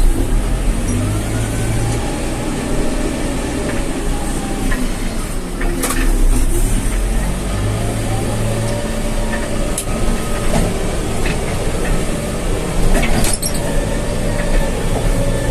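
Backhoe loader's diesel engine running hard while pushing soil through mud, its pitch rising and falling as it works, with several sharp metallic clanks.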